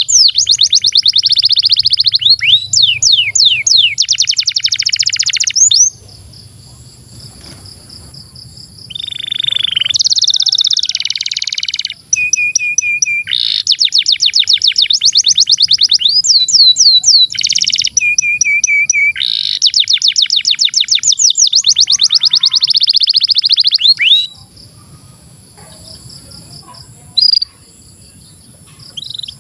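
Canary singing long, fast rolling trills in phrases of several seconds, broken by short pauses and a couple of briefly held whistled notes. The song drops to a quieter stretch for the last few seconds.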